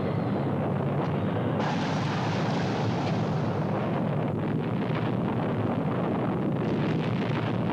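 Continuous rumbling roar of an atomic bomb blast on an old test-film soundtrack, a steady noisy din with no separate bangs. It turns brighter and harsher about a second and a half in.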